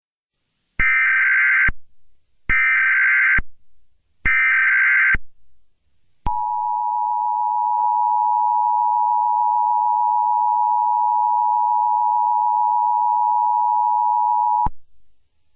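Emergency Alert System SAME header: three short bursts of digital data tones about a second in, followed by the EAS two-tone attention signal (853 and 960 Hz sounded together), held steady for about eight seconds before cutting off sharply.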